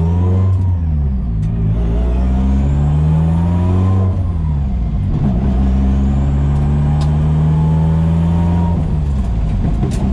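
Nissan SR20DET turbo four-cylinder accelerating hard through the gears, heard from inside the car: the engine note climbs through one gear, drops at an upshift about four and a half seconds in, climbs again through the next gear, then falls near the end. A faint high whine rises along with each pull.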